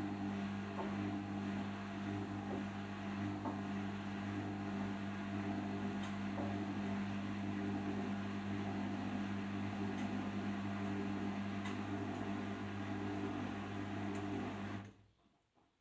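Arçelik 5083 washing machine in its 800 rpm final spin: a steady motor hum with a whirring rush and a few faint ticks. The sound cuts off abruptly about fifteen seconds in.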